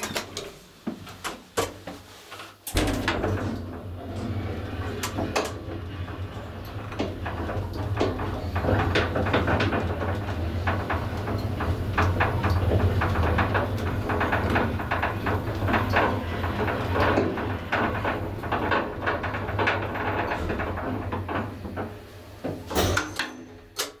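1963 HIRO elevator without inner car doors making a trip: a few clicks after the button press, then the drive starts suddenly about three seconds in and the car runs for about twenty seconds with a steady low hum and continuous rattling and clicking. It stops near the end with a couple of clunks.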